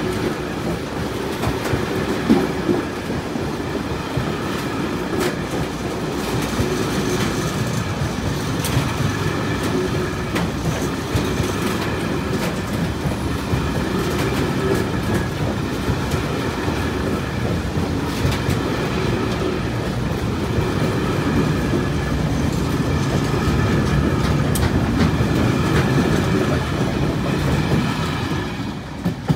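Freight train wagons rolling past close by: a steady rumble with the clickety-clack of wheels over rail joints and faint high ringing above it. The sound grows a little louder, then falls away sharply near the end as the last wagon goes by.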